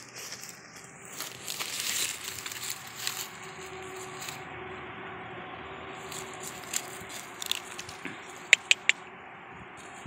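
Dry fallen leaves rustling and crunching under a husky puppy moving through them on grass. Near the end come three quick sharp clicks.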